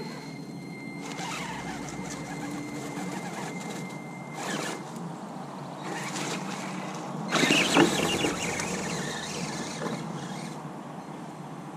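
Radio-controlled monster truck's motor and gears whining steadily for the first few seconds, then its tyres scrabbling and crunching through loose wood chips as it climbs the pile, loudest a little past halfway.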